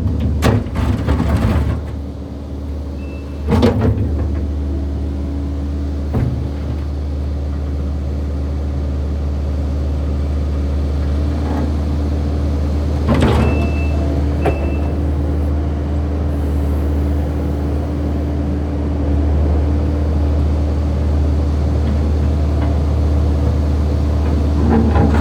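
Kubota SVL95-2s compact track loader's diesel engine running steadily under work, with sharp metallic clanks from the machine a few times, loudest about 4 and 13 seconds in.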